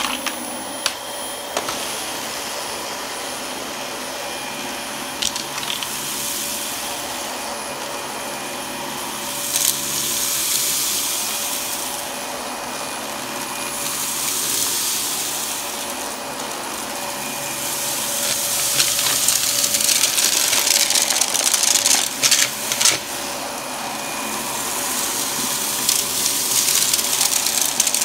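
Dyson upright vacuum cleaner running on carpet, a steady motor drone with a thin high whine, swelling and easing as it is pushed back and forth. A few short crackles come through, clustered near the end.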